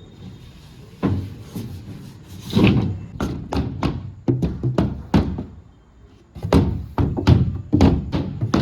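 Background music with a series of dull knocks, sparse at first and then coming about three a second in the second half.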